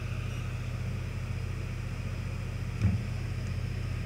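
Steady low hum of a bench fan running, with a single brief thump about three seconds in.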